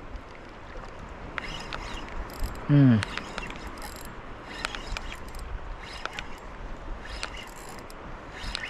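Daiwa Crest LT 3000 spinning reel clicking in short, irregular spurts while a freshly hooked fish is fought. About three seconds in the angler gives a short exclamation that falls in pitch.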